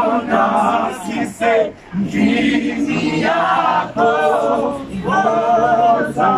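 A vocal group singing a cappella in harmony, in held phrases with short breaks between them.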